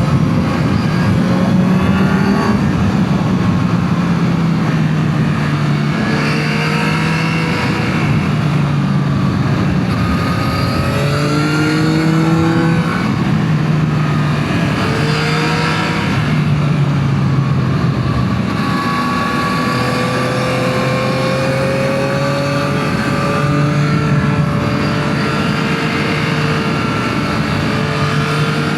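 Yamaha MT-09 SP's 890 cc three-cylinder engine through its stock exhaust while riding, its pitch climbing under throttle and dropping again several times as it pulls through the gears.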